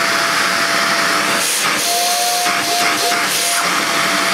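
Hoover Jovis 550-watt corded handheld vacuum running on its turbo setting, the motorised brush bar in its nozzle switched on: a steady loud rush of air with a steady whine. A few brief surges in the hiss come between about one and a half and three and a half seconds in.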